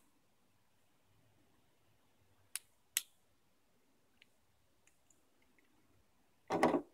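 Aluminium LED flashlights handled on a tabletop: two sharp clicks about half a second apart, then a louder short clatter of metal near the end.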